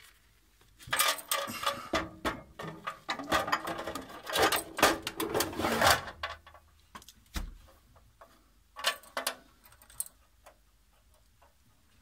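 Handling noise as a sealed lead-acid battery is set into a metal power-supply cabinet and its leads are connected: a busy run of knocks, scrapes and clicks over the first half, then a few scattered clicks.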